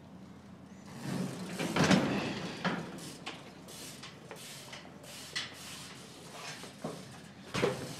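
BMX bikes rolling into a semi trailer and along its hollow wooden floor: a rumble of tyres with rattling, loudest about two seconds in, then scattered knocks and clatters, with a louder thump near the end.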